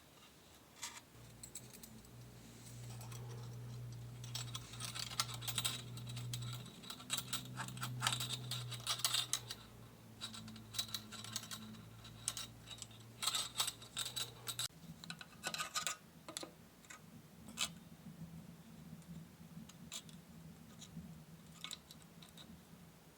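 Hand work on wood: irregular scratching, scraping and light clicks, busiest in the middle, over a faint steady low hum that shifts higher about two-thirds of the way through.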